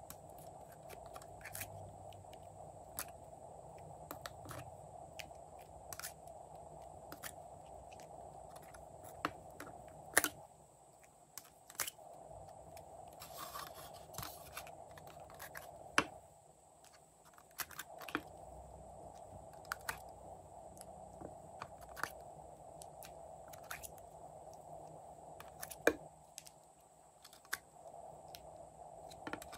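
Scattered sharp plastic clicks and crackles from a thin clear plastic mold tray flexing as soft clay shapes are pushed out of it, a few of them louder snaps, over a faint steady hum.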